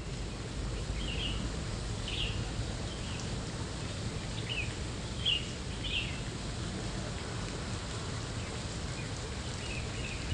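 Small birds giving short, high chirps, scattered through the first six seconds and again near the end, over a steady low rumble of outdoor background noise.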